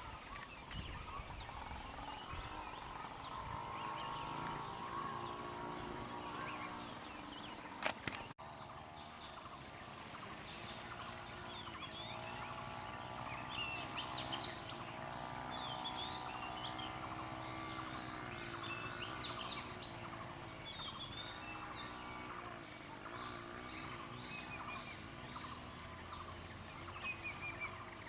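Forest ambience: a steady high-pitched insect drone with scattered bird chirps, over a lower wavering hum. A short sharp click about eight seconds in is the loudest moment.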